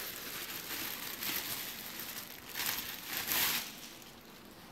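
Clear plastic packaging bag crinkling as it is pulled open and worked off a backpack. It is loudest in two rustling surges about two and a half to three and a half seconds in, then fades.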